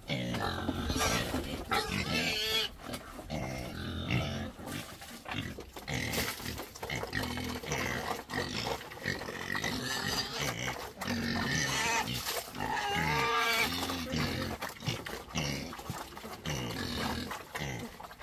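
Several young black pigs squealing and grunting at feeding time, calls coming one after another and bending in pitch.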